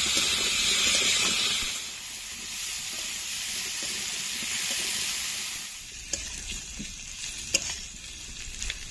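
Vegetables sizzling in hot oil as they are stirred and sautéed with spices. The sizzle is loud for the first couple of seconds, then dies down, fading further about six seconds in, with a few sharp clicks near the end.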